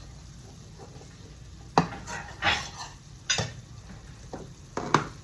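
Homemade gravy being stirred in a pan on the stove: a cooking utensil scraping the pan, with three sharp clinks against it, about a second and a half apart.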